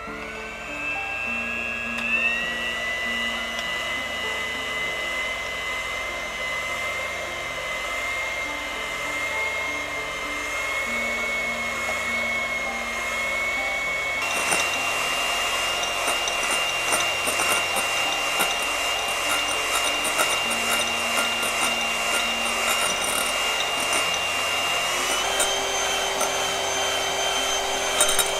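Electric hand mixer beating egg whites to soft peaks in a glass bowl: a steady motor whine that spins up at the start and steps up in pitch twice, about halfway through and near the end.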